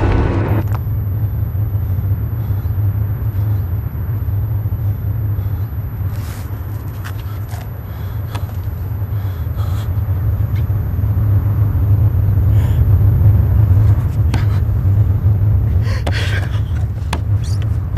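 A loud, steady low rumble with a thin high-pitched tone held above it and scattered faint clicks, swelling louder about two-thirds of the way through.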